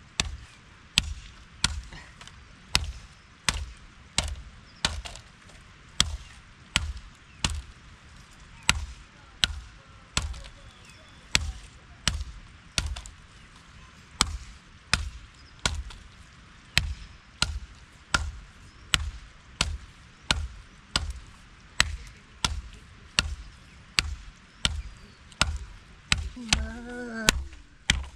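Steady, evenly spaced strikes of a tool on a hard surface, a little more than one a second, each a sharp knock with a dull thud under it. A voice is heard briefly near the end.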